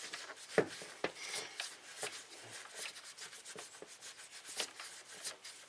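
Cloth shop towel rubbing as it wipes out a dirty throttle body, with a few small taps from hands and rag against the part.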